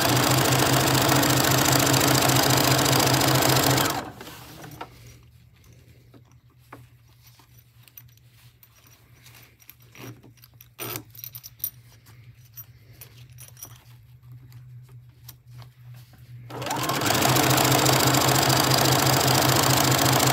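Domestic sewing machine stitching a zipper onto a quilted fabric panel, in two steady runs: one that stops about four seconds in, and another that starts about four seconds before the end. Between the runs, small scattered clicks of the fabric and zipper being handled.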